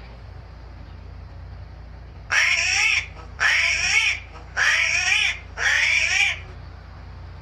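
An animal calling four times in a row, each cry about two-thirds of a second long with a wavering pitch, about a second apart.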